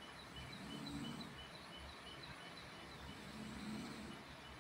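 Faint outdoor ambience with a quick, evenly repeating high chirp that alternates between two pitches, about three times a second.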